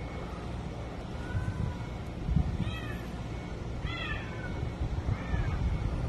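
Cats mating, with a few short meowing calls that each drop in pitch, the clearest two about three and four seconds in, over a low rumble.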